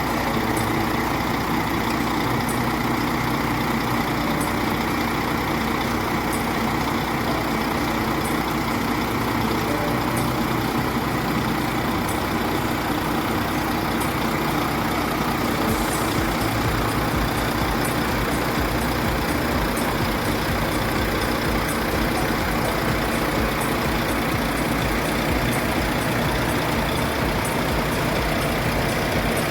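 Heavy truck engine idling steadily, a continuous low rumble; its low end changes a little about halfway through.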